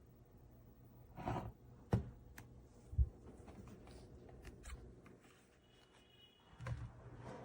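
A few scattered clicks and light knocks with brief rustles: a sharp click about two seconds in and a dull knock about a second later.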